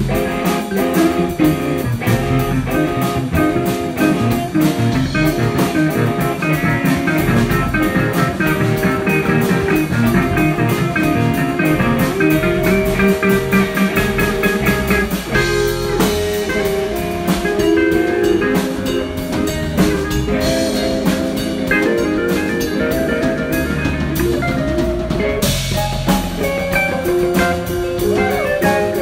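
Music with guitar and a drum kit, in a blues style, with a steady beat.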